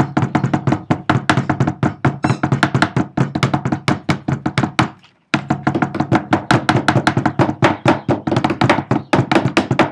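Rocks pounding yucca leaves against a tabletop: rapid, uneven knocks from two people working at once, breaking off for a moment about five seconds in.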